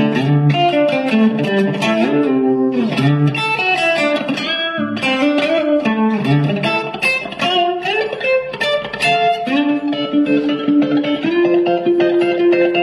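Background music led by guitar: a run of picked notes with sliding pitch bends, settling into long held notes in the second half.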